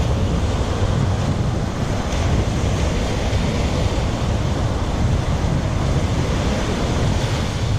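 Surf breaking on the beach, with wind buffeting the microphone in a steady low rumble.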